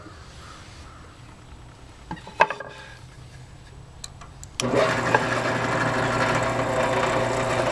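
A few light knocks of a wooden board being handled on a benchtop drill press table. About halfway through, the drill press motor switches on abruptly and runs steadily with a hum, its 1-inch Forstner bit spinning free above the pine board before it starts to cut.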